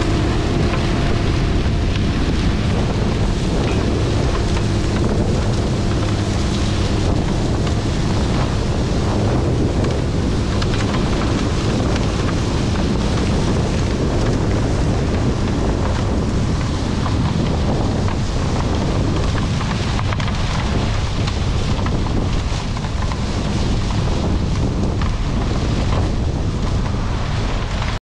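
A combine harvester running steadily, a low mechanical hum under a loud rushing of wind on the microphone.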